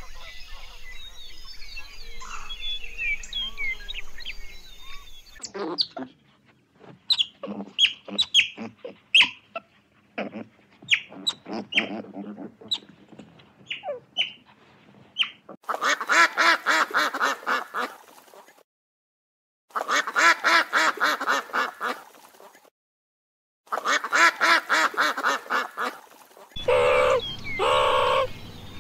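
Animal calls in a series of short clips cut one after another: chirps, then scattered short calls and clicks, then three runs of rapid, evenly pulsed calls of about three seconds each, separated by sudden short silences.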